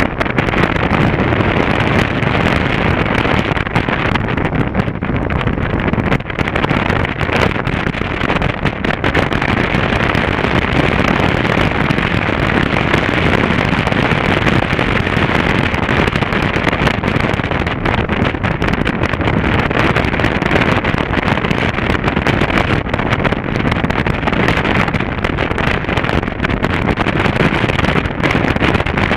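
A motorcycle riding steadily at road speed, heard from the bike itself: a continuous rush of wind over the microphone blended with engine and road noise.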